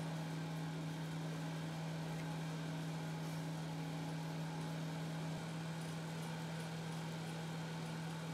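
A steady low mechanical hum, even in level, with a slight shift about five seconds in.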